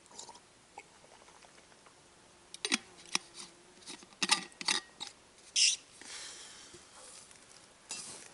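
A metal drinking bottle being handled and closed: a run of sharp clicks and clinks, followed by soft rustling as it is stowed in a backpack, with a few more clicks near the end.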